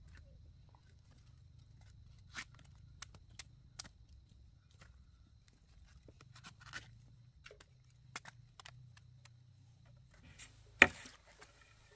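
Scattered light clicks and snaps over a low steady hum, with one sharp, much louder knock near the end.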